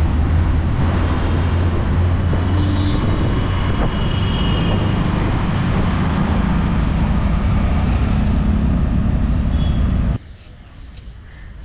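A motor vehicle engine running close by amid street traffic, a loud, steady low hum. It cuts off suddenly about ten seconds in, leaving quieter street sound.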